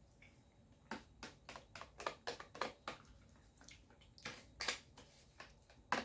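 Faint, short clicks and smacks, irregular, two or three a second, from tasting a spoonful of yogurt-and-mint dip: lip and mouth smacks, with a spoon and a plastic tub being handled.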